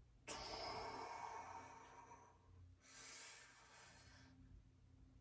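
A man breathing out heavily from the exertion of dumbbell curls: two long exhales, the first about two seconds long, the second shorter and softer.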